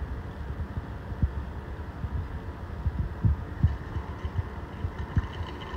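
IKA C-MAG MS 7 magnetic stirrer running under a glass bottle of buffer, a steady hum with irregular low thumps several times a second.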